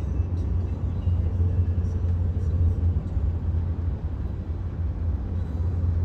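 Steady low rumble of a car driving, heard from inside the cabin: road and engine noise.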